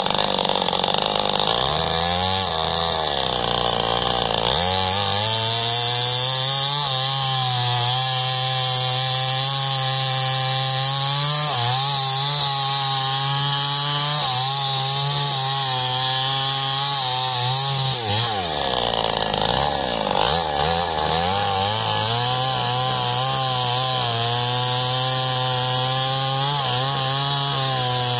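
Two-stroke chainsaw running at high revs, sawing into the trunk of a large tree. Its pitch drops and recovers a few times as the chain bites into the wood, near the start and again about two-thirds through.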